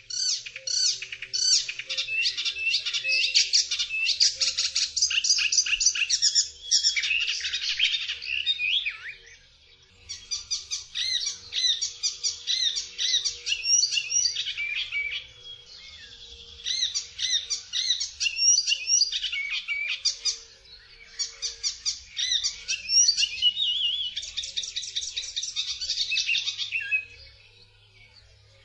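Icterine warbler singing: rapid, varied high notes run together in four long stretches, with short breaks between them.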